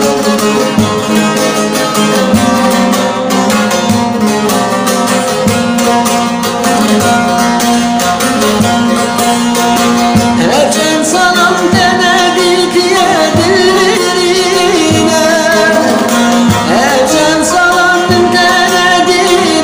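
A song with plucked-string accompaniment; from about halfway through, a voice sings a wavering, ornamented melody over it.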